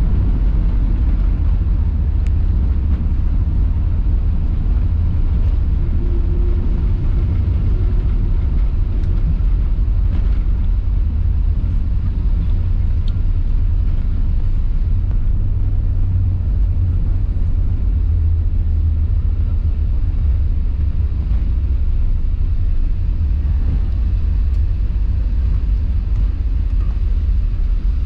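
Steady low rumble of cabin noise inside an Airbus A380-800 taxiing on the ground, with engines and airframe droning evenly and no change in pitch or level.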